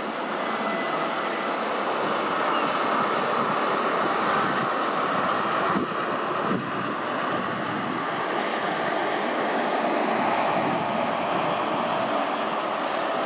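A High Speed Train's Mark 3 coaches rolling past on the rails with a steady running noise. Near the end the trailing Class 43 diesel power car draws level and adds a stronger lower note.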